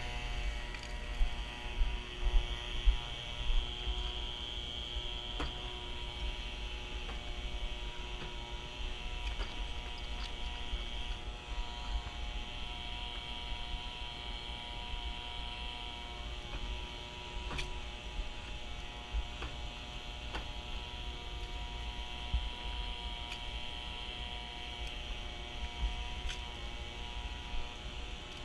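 Steady mechanical hum with a few steady whining tones and a hiss above them, under low rumbling that is strongest in the first few seconds, with a few faint clicks.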